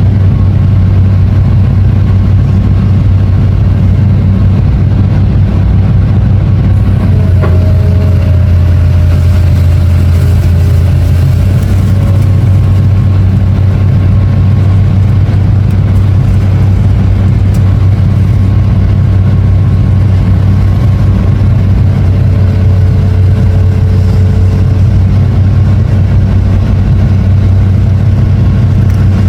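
Long-reach excavator's diesel engine running steadily under load with a deep, even hum. Faint higher tones drift in and out, and there is a single sharp tick about seven seconds in.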